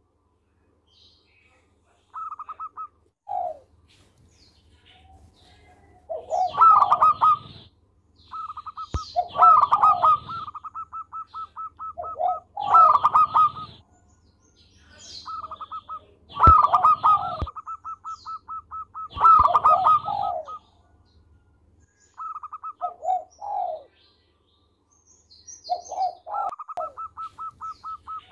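Zebra doves (perkutut) cooing in repeated bouts every few seconds. Each bout mixes lower rolling coos with a run of fast staccato notes a little higher in pitch. Faint higher chirps come in between.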